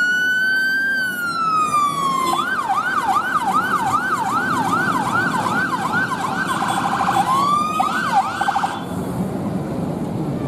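Volvo FL fire engine's siren sounding a long wail that falls away about two seconds in and switches to a fast yelp of about three sweeps a second, with a brief faster warble, then cuts off about nine seconds in. The truck's diesel engine runs underneath as it pulls away.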